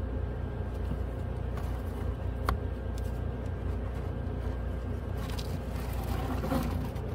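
Old cabin air filter being worked out of its housing in a 2010 Nissan Sentra: a sharp plastic click about two and a half seconds in, then scraping and rustling as the filter slides out, over a steady low hum.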